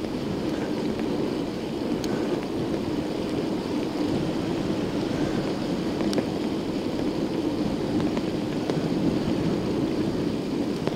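Strong wind buffeting the action camera's microphone: a steady rush of wind noise with no let-up.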